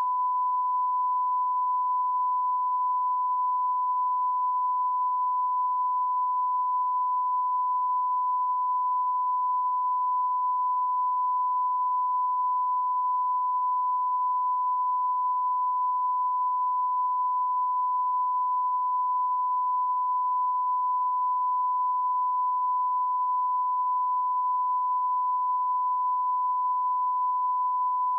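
Steady 1 kHz sine test tone held at one constant level, the line-up reference tone at the head of a broadcast news tape.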